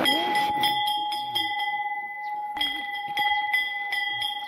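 Temple bell rung over and over, struck about three times a second so that its ring never dies away, with a short break about two seconds in.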